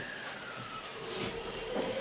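Electric train's inverter and traction motors whining as the train begins to pull away: a tone glides down early on, then from about halfway a second tone starts to rise in pitch as the train accelerates, over a steady rumble of the car.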